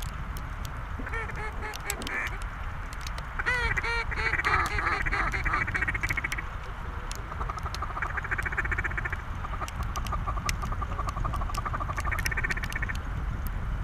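Mallard quacking in repeated runs, some loud drawn-out quacks and some fast even chuckling. A low rumble of wind on the microphone runs underneath.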